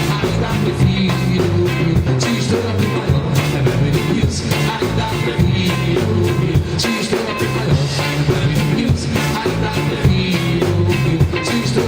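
Live band playing an up-tempo song, with a moving bass line under a steady drum and percussion beat.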